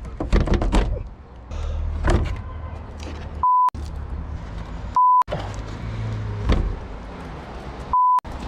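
Three short censor bleeps, identical beep tones that cut in and out sharply, blanking out swear words; the second comes about a second and a half after the first and the third near the end. Between them, knocks and handling noise from work on the roof fan.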